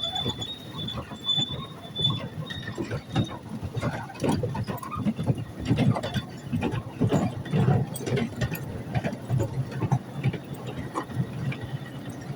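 Miniature railway train running on its track: an irregular clatter of wheels over the rails, with a thin high squeal during the first few seconds.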